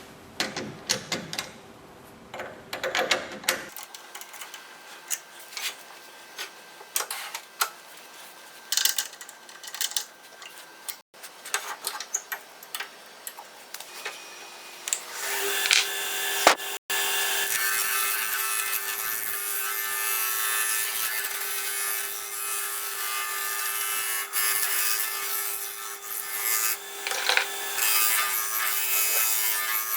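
A turning tool cutting wood on a spinning lathe blank. At first it is intermittent scraping with sharp ticks, then from about halfway through it becomes a steadier, louder cut over the constant hum of the lathe.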